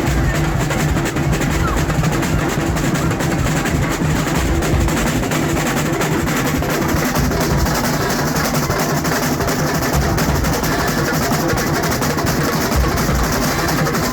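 Loud parade music with steady drumming, continuous throughout.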